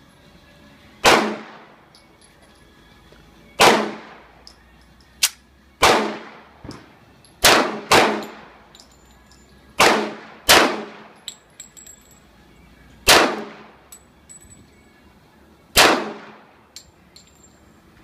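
Custom 1911 pistol fired about nine times at a slow, uneven pace, a second or two between most shots and two pairs close together. Each shot has a short trailing echo, and a few fainter sharp cracks fall between them.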